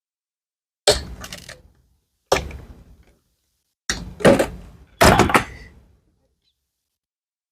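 Knocks and clicks of laptop parts being handled and set in place, about five sharp hits spread over a few seconds, each fading quickly.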